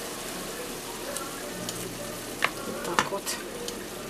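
Vegetables sizzling steadily in a frying pan while they are stirred and scraped with a wooden spatula. A few sharp knocks of kitchen utensils come a little past halfway, the loudest sounds.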